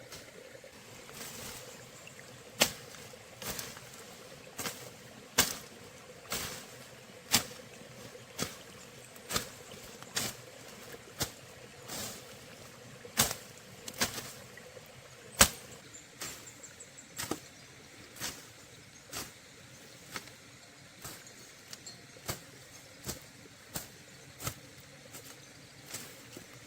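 Sharp knocks repeating roughly once a second, uneven in loudness, like strikes of a hand tool during building work.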